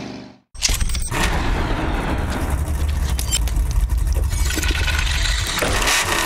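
Intro sound effect: a deep rumble with crackles and clicks that cuts in suddenly about half a second in, with falling pitch sweeps near the end.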